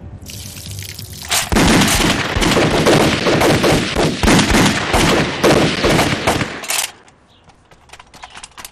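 A volley from many bolt-action rifles fired into the air, shots crowding together for about five seconds, then breaking off suddenly, with a few scattered cracks after.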